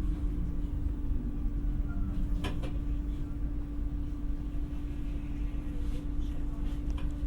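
Cabin sound inside an Alstom Coradia Nordic X60 commuter electric multiple unit: a steady low rumble with a constant hum, and a couple of brief clicks about two and a half seconds in and near the end.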